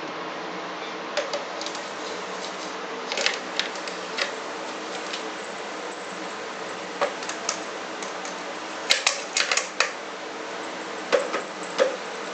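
A kitten's paws and claws tapping and scrabbling on a wooden floor as it pounces at a feather wand toy: irregular light clicks in short clusters over a steady hiss.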